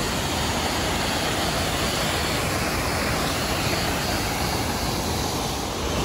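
Steady rushing of the Düden waterfall pouring into its pool, an even, unbroken wash of water noise.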